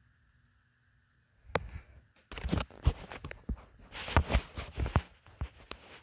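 Faint steady hum, then from about one and a half seconds in a loud, irregular run of sharp knocks and thumps.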